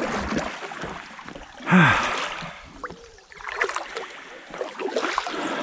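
Kayak paddle strokes dipping and splashing in calm water as an inflatable kayak gets under way. About two seconds in there is a louder splash with a brief voice sound.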